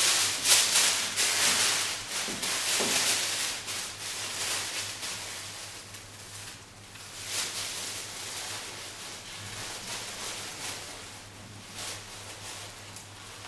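Acid-free tissue paper rustling and crinkling as it is handled with gloved hands, loudest in the first few seconds, with another burst about seven seconds in and softer rustling after that.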